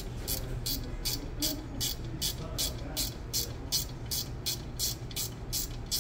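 Background music with a steady, crisp beat of about three ticks a second over a low, even bass.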